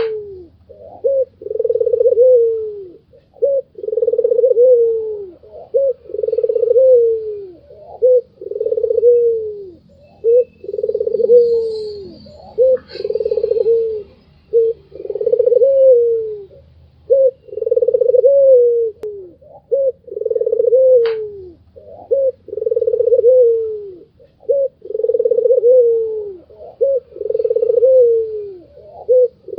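White Barbary dove (puter putih) cooing over and over: each call a short note then a longer falling coo, about one call every two seconds.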